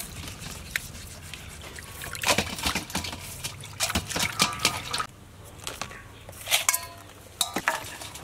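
Water splashing and dripping in a stainless steel bowl as a mud crab is scrubbed with a scouring pad, with irregular splashes and clicks that come thickest in the middle.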